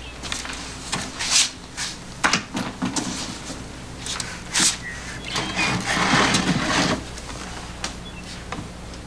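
Handling and movement noises: a wooden chair being moved and sat on, with clothing and bedding rustling, in a few short scuffs and then a longer rustle about two-thirds of the way through. A steady low hum lies beneath.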